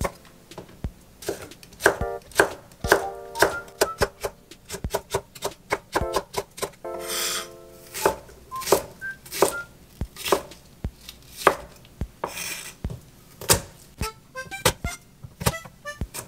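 Wide-bladed kitchen knife chopping chilli, onion and garlic on an end-grain wooden cutting board: separate knocks of the blade on the wood, roughly one or two a second, quickening into rapid mincing near the end. Soft background music plays underneath.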